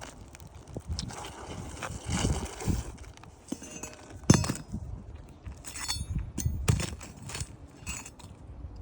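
Scattered knocks, scrapes and crunches of work on a shingle roof, such as footsteps and shingles being handled during a repair, with one sharp knock near the middle.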